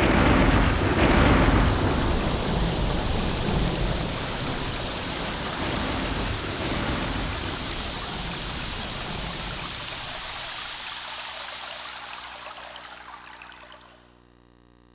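Synthesized rain-and-thunder-like noise effect from a karaoke machine's Roland SC-55 sound module: a loud start with heavy low rumble that settles into a steady rushing hiss and fades away near the end.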